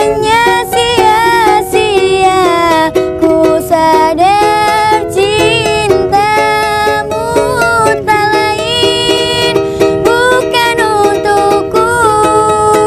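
A song: a voice singing a melody with wavering, sliding notes over a plucked string accompaniment.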